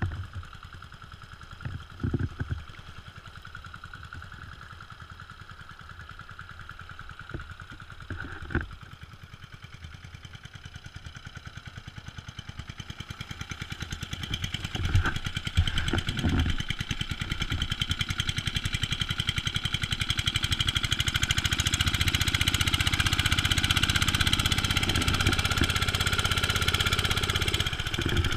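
A homemade outboard kicker built from a 12.5 hp single-cylinder Briggs & Stratton lawnmower engine running steadily while the boat is under way, pushing a propeller that the owner thinks a little too big for it. A few knocks come in the first half, and from about halfway in the engine grows louder and the wake's rushing, splashing water comes through.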